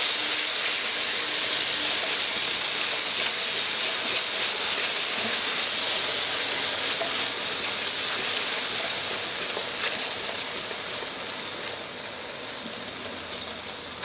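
Thai green curry paste and coconut cream sizzling in hot peanut oil in a pan: a steady frying hiss that slowly grows quieter over the last few seconds.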